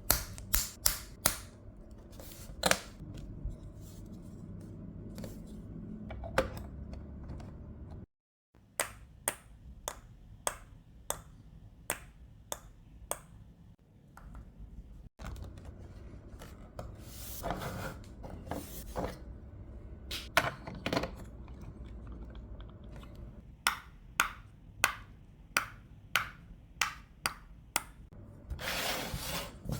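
Hard plastic LEGO bricks clicking as they are pressed together and handled, in irregular sharp clicks with short bursts of pieces rattling. The clicking is cut off abruptly twice.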